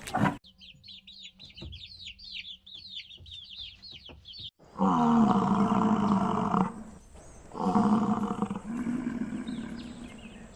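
Rapid high chirping of small birds, several falling chirps a second, for about four seconds. This cuts off suddenly and a large animal calls loudly in long, drawn-out calls, three times, the last weaker.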